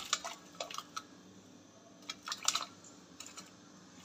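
Chopped radish and radish leaves tipped from a colander into a pot of boiling water: scattered soft clicks and taps as the pieces drop in, with a short cluster a little past halfway.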